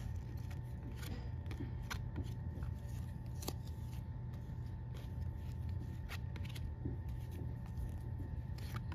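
Baseball trading cards being flipped through by hand, each card slid off the stack with a short, crisp flick about once a second, over a steady low hum.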